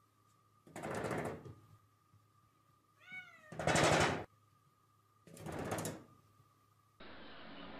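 A cat calling loudly three times, about two seconds apart. The middle call starts with a short pitched meow before the louder, rougher part.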